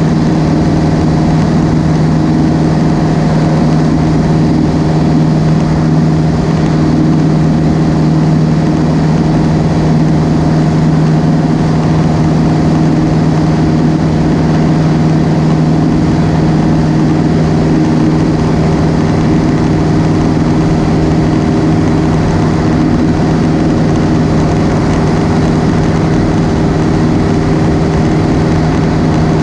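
Cessna 172's piston engine and propeller running steadily in flight, heard from inside the cabin as a constant loud drone with a strong low hum that does not change.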